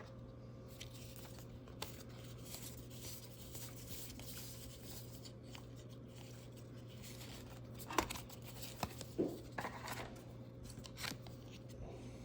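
Quiet handling of trading cards and their wrappers: faint rustles, with a few light clicks and scrapes about eight to eleven seconds in, over a steady low hum.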